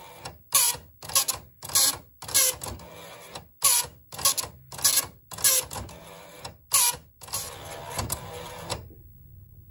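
Commodore 1526 (MPS-802) dot-matrix printer printing a graphics image line by line: a rasping print-head pass broken by a sharp burst about every half second. It stops about nine seconds in.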